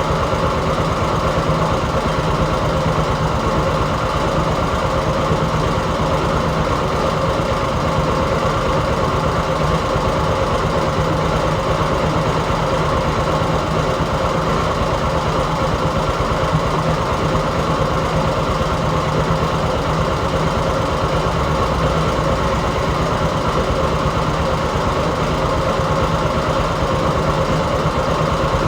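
Heavy construction-machine diesel engine running steadily at one even pitch.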